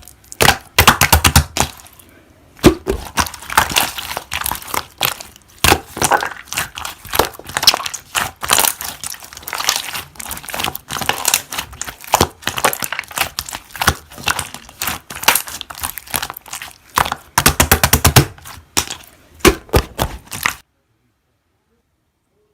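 Slime being squeezed and worked by hand, making a dense run of crisp crackling and popping clicks in irregular clusters; it cuts off suddenly near the end.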